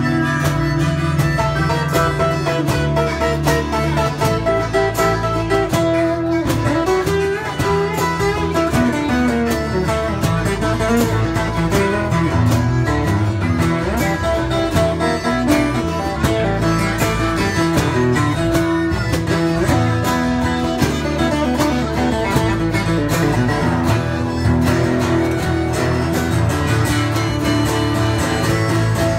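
Live country band playing an instrumental passage without singing: strummed acoustic guitar and electric bass, with harmonica played into a microphone and pedal steel guitar.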